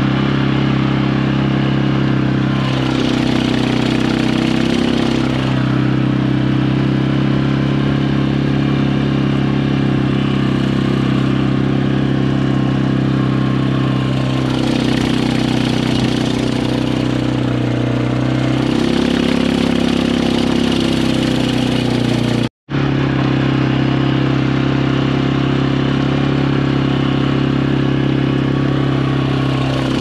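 Quad bike engine running steadily as it is driven across a field, with the engine speed rising and falling a few times. There is a brief break in the sound about three-quarters of the way through.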